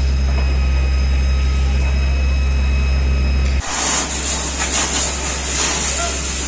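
A deep, steady engine hum. About three and a half seconds in, it cuts to the hiss of a fire hose spraying foam, with a lower engine hum underneath.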